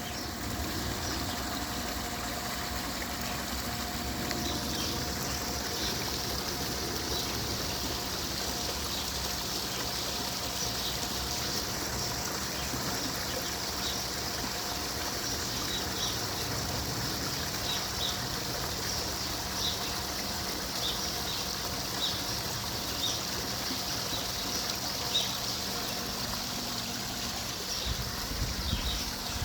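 Running water trickling steadily, with scattered short high chirps over it.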